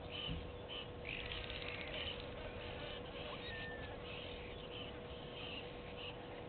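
Daytime bush ambience: insects buzzing in short pulses about twice a second, louder and buzzier for about a second early on, with a brief thin bird whistle a little past the middle over a steady faint hum.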